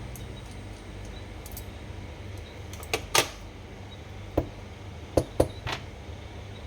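Small metal fishing-reel parts and tools knocking and clicking during the disassembly of a baitcasting reel. There are about six short sharp clicks between three and six seconds in, the loudest just after three seconds, over a steady low hum.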